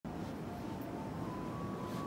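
Steady low rumble and hiss of a car ferry's interior, the ship's machinery and ventilation heard in a passenger corridor, with a faint thin hum over it.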